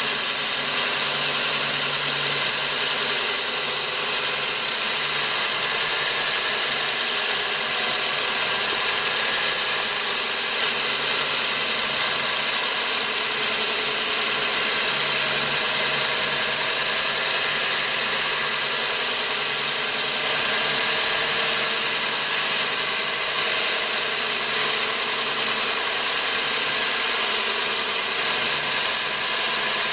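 Cuttronix CM-10S3 3.0 kW single-phase electric core drill motor running steadily under load, turning a 200 mm core bit as it drills down into the block: an even motor hum with a strong hiss from the cutting.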